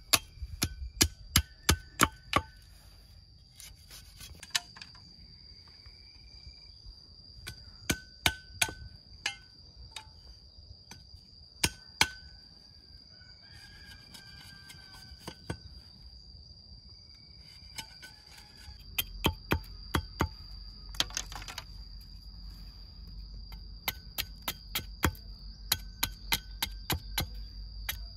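Machete blade chopping and splitting bamboo: sharp cracks and knocks in quick clusters, with short pauses between them. A steady high insect drone runs underneath.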